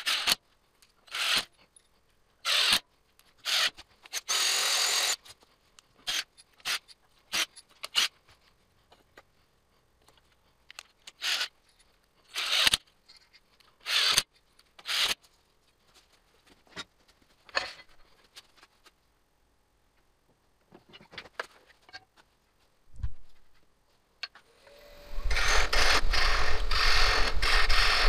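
Cordless power driver run in a string of short bursts, driving screws into a square wooden block mounted on a wood lathe. About twenty-five seconds in, the lathe starts and a turning gouge cuts the spinning block with a loud, steady noise.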